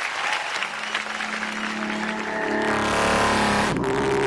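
A man imitating a car engine with his voice, a steady pitched drone that breaks and jumps higher near the end as if shifting gear, over audience applause at the start.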